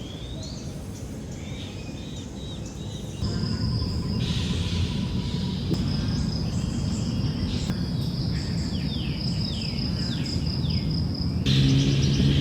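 Outdoor ambience: birds chirping in short falling calls, with a steady high insect drone over a low rumble. The background changes abruptly about three seconds in and again near the end.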